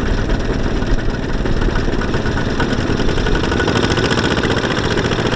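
Two-wheel walking tractors' single-cylinder diesel engines chugging steadily under load as they haul sack-laden trailers through deep mud.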